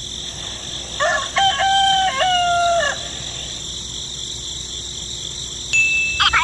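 A rooster crows once, for about two seconds, over a steady high hiss. Near the end, rapid chirping begins.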